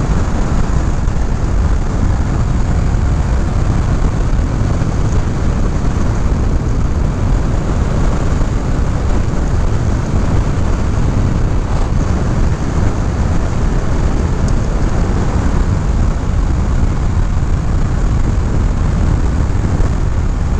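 Honda CBR500R parallel-twin engine running at a steady cruising speed, mixed with wind rushing over the microphone: an even, unbroken drone with no revving or gear changes.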